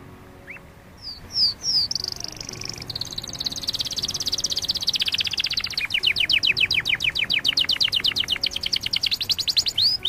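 Domestic canary singing: a few short down-slurred notes, then a long, fast trill, ending in a rapid run of repeated descending notes, about nine a second.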